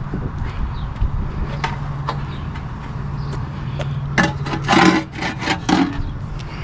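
Scrap being rummaged and handled in a steel dumpster bin, with a burst of clattering and rattling about four to six seconds in, over a steady low hum.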